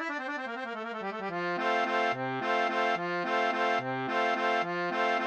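Accordion playing a song's instrumental intro: a quick run of notes stepping down, then from about a second and a half in a steady bouncing accompaniment of repeated chords over alternating bass notes.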